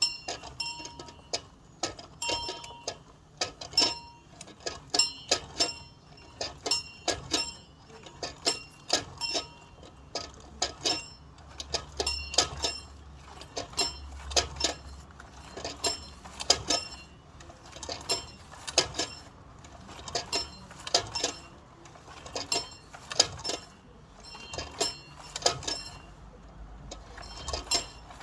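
Bell rung by pulling its rope, the clapper striking it over and over at roughly two strokes a second, each stroke a short metallic clang with a ringing tone.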